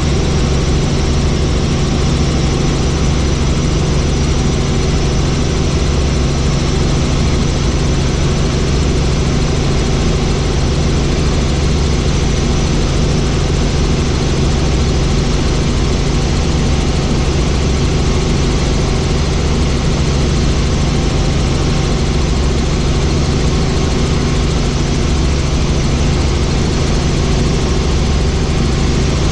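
Helicopter in flight, its turbine engine and rotors heard as a loud, steady drone with a deep hum beneath it.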